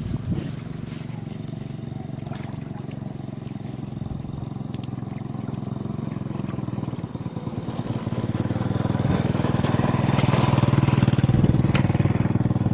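A small engine running steadily, growing louder from about two-thirds of the way through, with light splashing as hands work through shallow muddy water.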